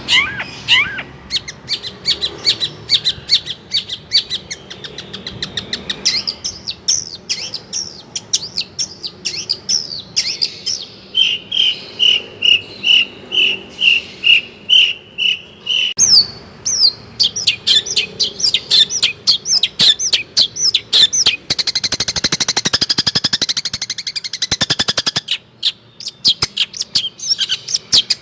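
Long-tailed shrike (cendet) singing a long, varied song of fast repeated notes. About halfway through it gives a run of evenly spaced clear notes, and near the end a dense, rapid chatter.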